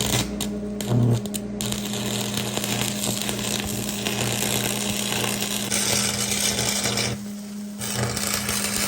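An electric power tool running steadily with a constant hum, its hiss getting brighter about six seconds in and again near the end, with a short dip just after seven seconds.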